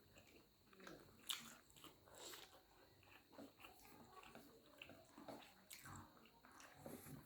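Faint close-up eating sounds: people chewing buff sukuti chowmein, with a few light clicks, the sharpest about a second in and another near six seconds.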